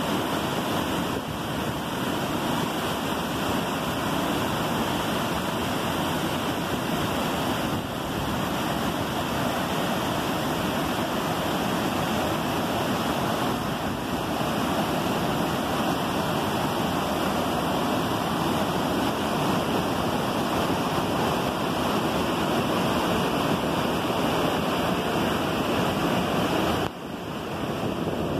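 Waterfall cascading over boulders: a steady, dense rush of whitewater, dipping briefly near the end.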